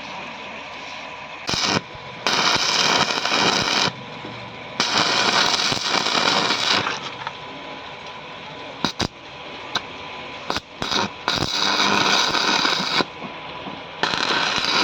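Arc welding: bursts of crackling hiss that start and stop abruptly as the arc is struck and held for a second or two at a time, about five times, with a few very short strikes in between.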